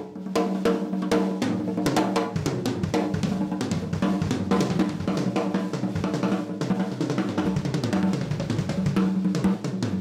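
Drum kit played in a fast, steady groove: dense strokes on kick, snare and toms with Zildjian cymbals ringing over them.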